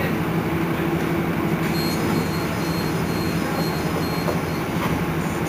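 Iveco Crealis city bus running, a steady drone with a low hum. Faint, short high-pitched chirps come and go about two seconds in.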